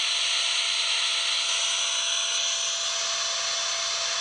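Vacuum cleaner recording from a white noise app, played through a phone's speaker: a steady, loud hiss with a thin, even whine in it.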